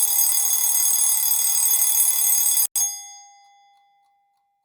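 Alarm clock ringing continuously, stopping abruptly a little under three seconds in, after which its ringing tone fades away over about a second and a half.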